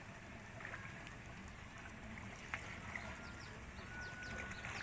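Faint outdoor background noise with light splashing of water as a net or basket is worked at the water's edge, and a single small click about two and a half seconds in.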